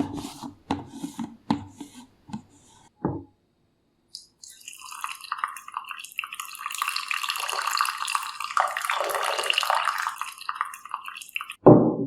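A string of light clicks and knocks, then water running from a tap for about seven seconds, ending with a heavier thump.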